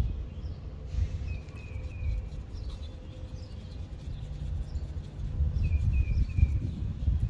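Outdoor ambience: a steady low rumble with a small bird calling a quick run of three short falling chirps, about a second in and again near the end.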